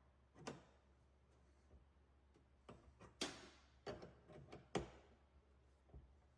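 Faint, scattered clicks and knocks of wrenches working on the miner PSU's metal coolant connector fittings as they are snugged down, with about half a dozen sharp ticks, the loudest a little after three seconds in and near five seconds in.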